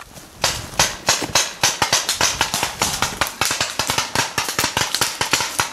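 Paintball markers firing in rapid, overlapping shots, several to about ten sharp pops a second, starting about half a second in as the game opens.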